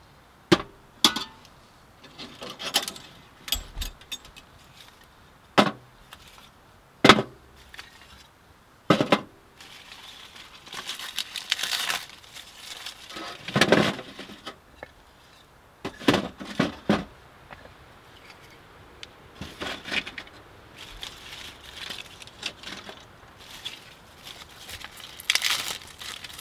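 A pot and the metal parts of a small tent wood stove are handled, giving several sharp clinks and knocks. Later come stretches of rustling and light clatter as birch bark and split kindling are packed into the firebox to lay a cooking fire.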